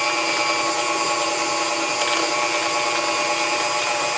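KitchenAid tilt-head stand mixer running steadily on a raised speed setting, its motor giving a steady whine as the wire whip beats butter, sugar and egg in a stainless steel bowl.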